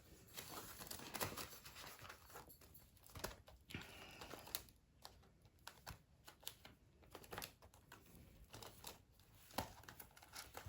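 Faint rustling and crinkling of paper bills and an envelope being handled, with scattered small clicks and taps, as cash is tucked into a budget envelope.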